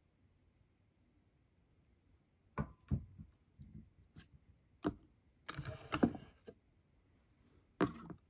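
Handmade toy moth figures knocking and scraping on a plastic tray as they are handled: a few sharp taps a few seconds in, a longer scraping rustle around six seconds, and another clatter near the end.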